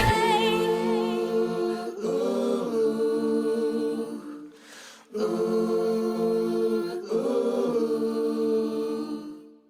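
Layered female pop vocals holding long harmony notes with no instruments behind them, in two phrases split by a short break about halfway. The final chord fades out near the end.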